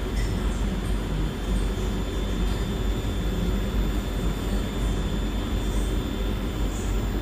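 Beko WS832425s washing machine spinning at high speed, around 1,200 to 1,300 rpm, with suds built up in the drum: a steady rumble with a faint high whine.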